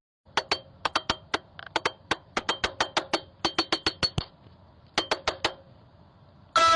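A rapid run of sharp, slightly ringing taps on a hard surface, about four to five a second, pausing and then coming three more times. Near the end a loud sequence of stepped tones begins.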